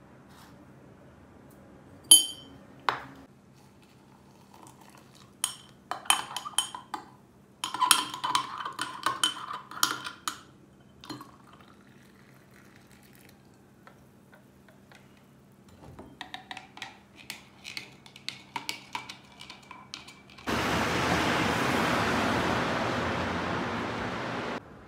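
Kitchen clatter of dishes and cutlery clinking and knocking in scattered bursts. Near the end a loud, steady rushing noise starts suddenly, runs about four seconds and cuts off.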